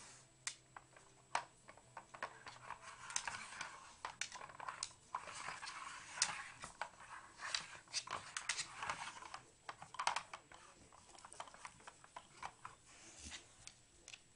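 Dog working a stacked plastic puzzle feeder with its nose: irregular plastic clicks and knocks as the rotating layers are pushed round, with stretches of scraping and rustling in the middle and claws tapping on a wooden floor.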